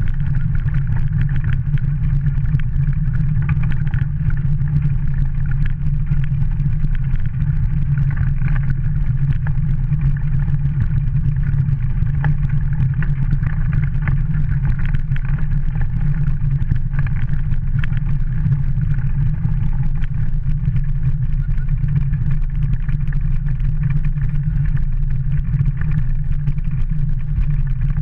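Dog-drawn kart rolling over a gravel and snow track: a steady, loud low rumble from the wheels and frame that carries on unbroken.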